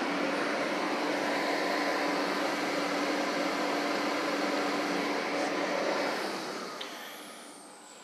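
Steady fan-like mechanical rush with a low constant hum from running machinery. It fades away over the last two seconds as a thin high whine slides down in pitch, like a motor spinning down.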